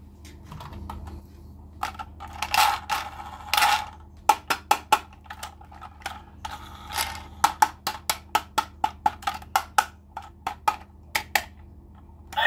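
Hard plastic clicks and knocks with a few short scraping rustles as a plastic toy train is handled and turned over in the hands. In the second half the clicks come quicker, about three or four a second.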